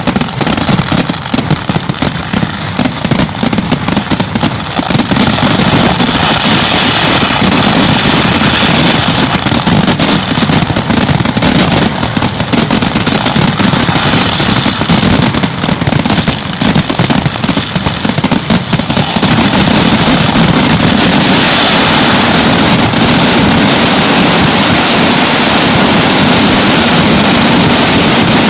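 Kerala festival fireworks (vedikkettu): a rapid, dense barrage of firecracker blasts that thickens about two-thirds of the way in into one continuous, unbroken din of explosions.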